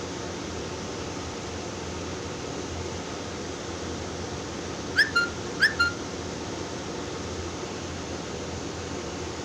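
Two short whistle-like chirps about half a second apart, midway through, each a quick rising note followed by a brief level one, over a steady fan-like hiss.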